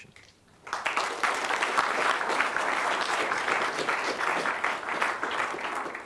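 Audience applauding, starting a moment in and dying away near the end.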